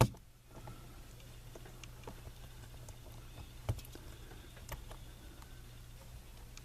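Small scattered clicks and taps of hands handling a model locomotive's motor and plastic chassis parts while fitting the motor back into its rubber mounts, over a steady low hum. A sharp click at the very start, and a louder tap a little over halfway through.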